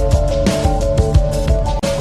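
Background music with a steady electronic beat and a repeating melody, with a brief dropout near the end.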